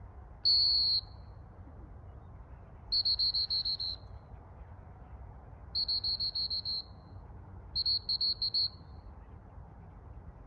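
Gundog handler's whistle: one long blast, then three runs of quick short toots at the same high pitch. In retriever handling this is the stop signal followed by come-in toots directing the dog.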